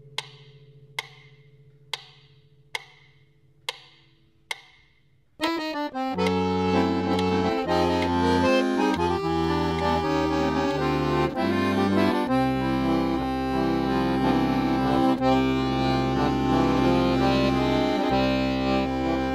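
Sharp ticks about once a second over a fading low note, then about five seconds in accordion music starts: sustained chords with moving bass notes.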